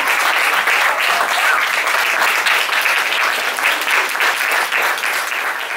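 Audience applauding: dense, steady clapping that slowly fades toward the end.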